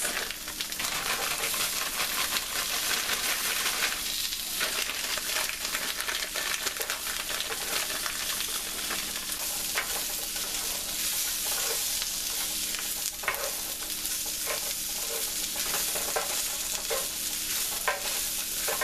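Potatoes, onions and veggie steak strips sizzling in butter in a cast iron skillet, a steady hiss with scattered short scrapes and clicks as the food is stirred in the pan.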